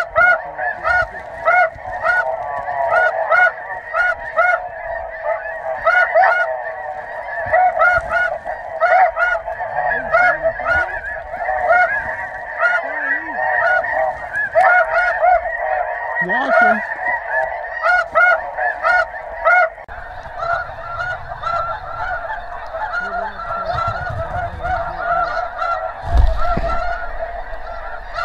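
Dense chorus of snow geese calling, many overlapping honks repeating without a break. There is a dull low thump near the end.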